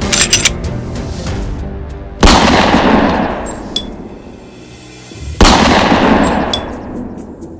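Two loud handgun shots about three seconds apart, each ringing out in a long fading echo, with soundtrack music underneath. A quick cluster of sharp cracks comes just at the start.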